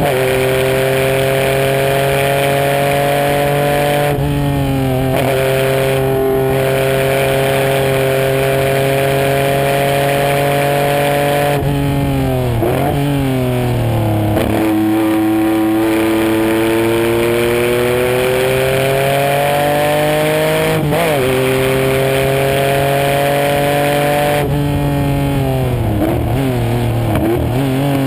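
Race car engine at high revs, heard onboard, climbing steadily in pitch through long pulls with sudden drops at gear changes. About midway and again near the end the pitch wavers and jumps as the driver brakes and downshifts, blipping the throttle, before pulling up again.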